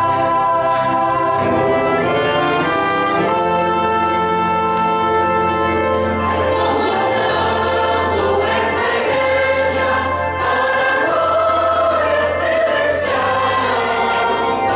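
Mixed church choir singing a hymn in slow, held chords, accompanied by trombones, euphonium and violins.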